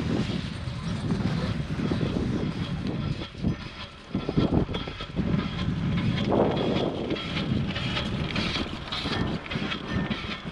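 Riblet double chairlift's haul rope and chair grip rolling over a tower's sheave train, a rumbling clatter with repeated clacks that are strongest around the middle as the chair passes the tower.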